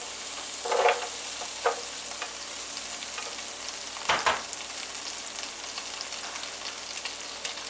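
Chopped onion sizzling in melted butter in a hot frying pan, a steady hiss, with a few short clatters of a utensil against the pan, the loudest about four seconds in.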